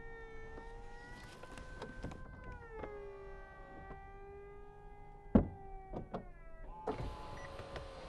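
Audi RS 5 Cabriolet's power-operated fabric roof folding down: a steady motor whine that drops in pitch about three seconds in, with a loud clunk a little past five seconds and several lighter clicks after it, then a hiss near the end.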